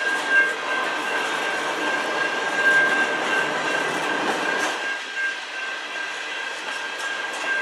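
Freight train of covered hopper cars rolling past: a steady rumble with light clicking of wheels over the rails, and a steady high-pitched ringing tone throughout. The rumble thins a little about five seconds in.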